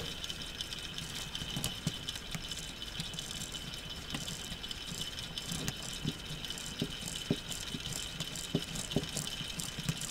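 K'nex model engine running on a wound-up clockwork motor. The motor gives a steady high whine, and the plastic rods, gears and pistons set up an irregular light clicking rattle.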